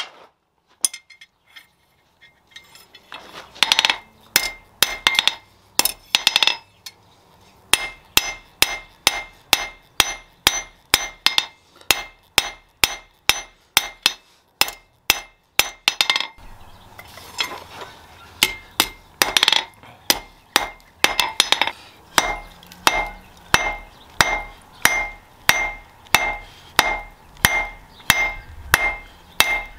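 Steel being forged with a hand hammer on an anvil: a steady run of sharp, ringing blows, about two to three a second, after a short pause at the start.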